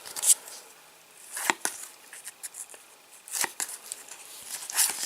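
Topps Match Attax trading cards being handled and flicked through one by one, four short crisp swishes and taps about a second or two apart.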